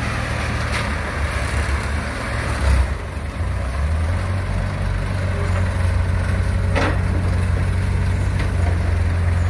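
Small CAT hydraulic excavator's diesel engine running steadily while its bucket digs and swings through wet mud, with a sharp clank about seven seconds in.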